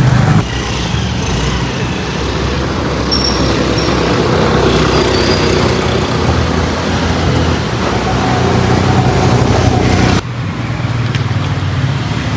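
Steady motor-vehicle and road-traffic noise, a dense rumble with engine hum. The sound changes abruptly about ten seconds in.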